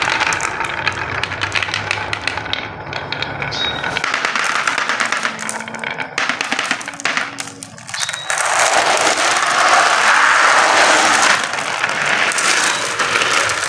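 Glass marbles clattering as they roll down wooden grooved track and drop into a plastic tray, with a rapid run of clicks. From about eight seconds in, a louder continuous rattle as many marbles roll and knock around together in the plastic tray.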